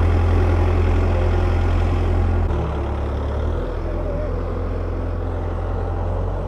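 Vehicle engines idling with a steady low hum, the tone shifting slightly about two and a half seconds in and again a second later.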